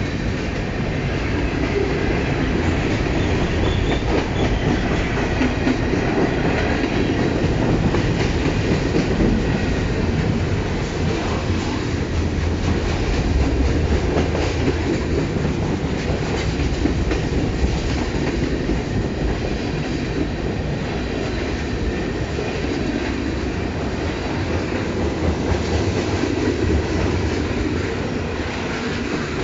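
Freight train of tank cars, covered hoppers and boxcars rolling past close by: a steady rumble of steel wheels on rail with clicking over the rail joints.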